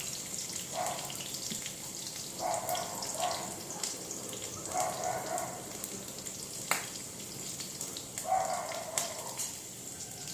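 Chopped garlic and green chillies frying in hot mustard oil in a kadhai: a steady sizzle with scattered small pops and crackles.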